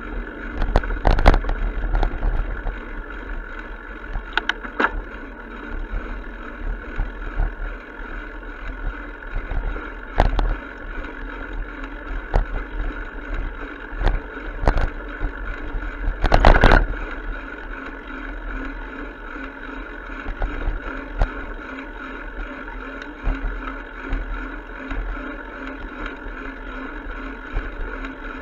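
Bicycle rolling along a paved path, heard from a camera on the bike: a steady rumble with scattered clicks and rattles from bumps, and a louder clatter about 16 seconds in.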